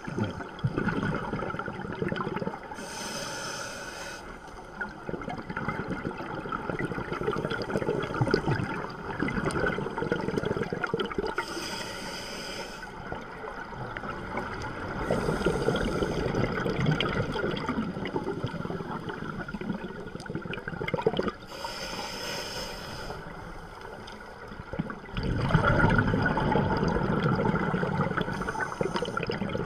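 Underwater scuba breathing through a regulator: short hissing inhalations about every eight to ten seconds, with bubbling, gurgling exhalations rumbling in between.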